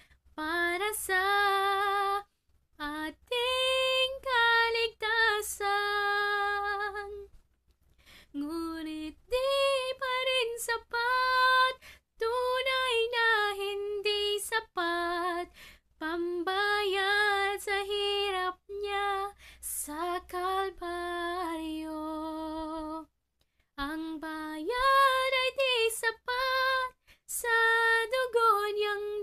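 A young woman singing a slow Christian gospel song solo and unaccompanied, in phrases broken by short pauses for breath, with a slight vibrato on the held notes.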